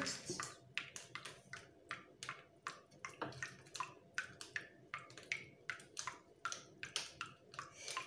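Quick light clicks and rustles, about three a second, from a metal spoon and a paper sachet being handled.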